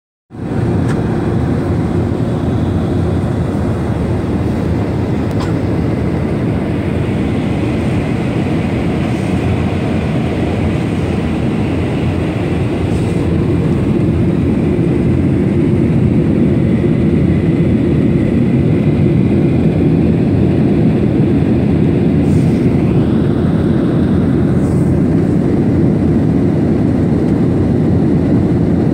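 Airliner cabin noise in flight: the steady low rumble of the jet engines and rushing air, heard from a passenger seat. A faint high whine runs over it and jumps up in pitch about three-quarters of the way through.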